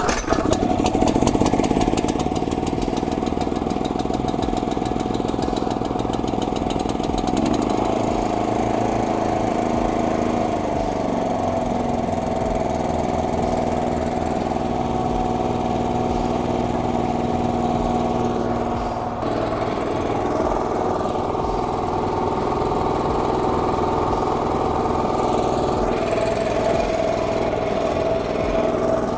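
Honda GX340 single-cylinder petrol engine pull-started, catching on the first pull and running, loudest for the first couple of seconds. Its note drops a little between about eight and eleven seconds in as it settles, then it runs steadily.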